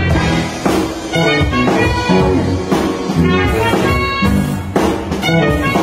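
A live band playing: a drum kit keeping a beat, an Epiphone SG electric guitar, and a held melodic lead line moving from note to note.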